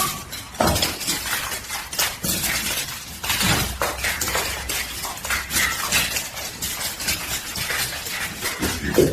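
Continuous clattering: many sharp knocks and clinks of hard objects, one after another.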